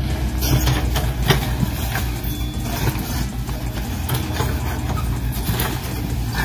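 Steady idling diesel-engine rumble, the simulated engine sound of a radio-controlled Volvo excavator working its boom, with a few sharp clicks.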